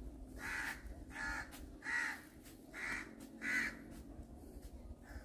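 A crow cawing: five short, harsh caws in the first four seconds, the fourth and fifth close together.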